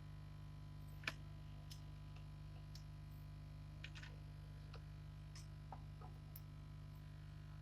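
Faint, irregular light clicks and ticks, about ten of them and the sharpest about a second in, over a steady low electrical hum.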